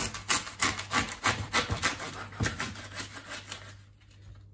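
Serrated bread knife sawing through artichoke leaves on a wooden cutting board: quick, even strokes, about three or four a second, that stop about a second before the end.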